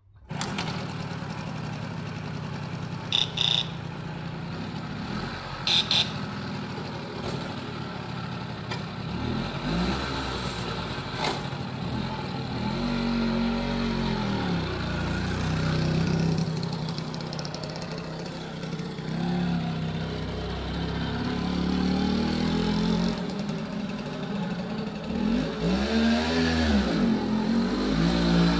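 Kreidler Florett moped's freshly overhauled two-stroke single-cylinder engine catching right at the start and running, its revs rising and falling again and again as it is ridden around. Two brief sharp sounds stand out about three and six seconds in.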